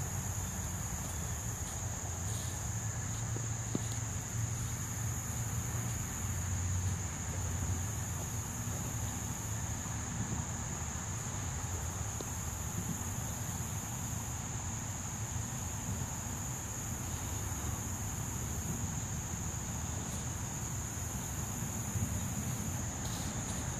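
Steady, high-pitched chorus of insects, unbroken throughout, over a low rumble.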